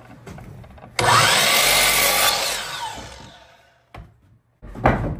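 A power saw cutting into a wooden board: it starts suddenly about a second in, then winds down and fades over about two seconds. A short knock follows near the end.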